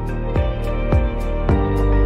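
Background music with a steady beat, about two strokes a second, over sustained chords and a bass line.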